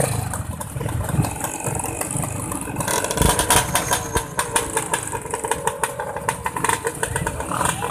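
A vehicle engine running with a steady low rumble; from about three seconds in, a dense clatter of rattles and knocks joins it.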